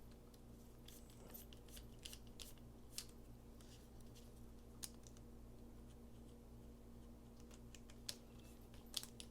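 Faint, scattered small clicks and ticks of a screwdriver bit and metal parts as a folding flipper knife is taken apart, over a steady low hum.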